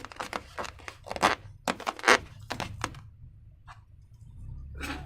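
Hands handling slime-making materials, giving a quick run of crackling, crinkling noises for about three seconds, then a pause and a short rustle near the end.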